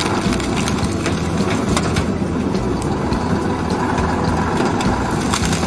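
Heavy off-road truck's engine running steadily under load as it pushes through a jam of logs and snow.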